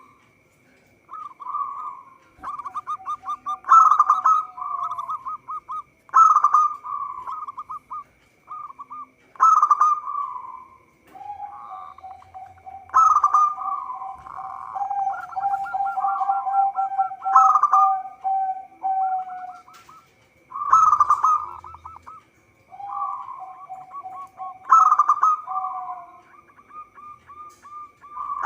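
Zebra dove (perkutut) cooing: repeated phrases of quick staccato coos, one every two to three seconds, with a lower, faster rolling trill overlapping several phrases. A faint steady high whine runs underneath.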